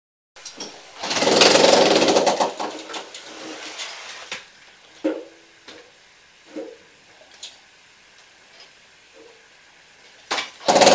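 Demolition noise: a loud burst of rapid rattling knocks from concrete and masonry being broken, fading after a couple of seconds into a few separate knocks, with another loud burst near the end.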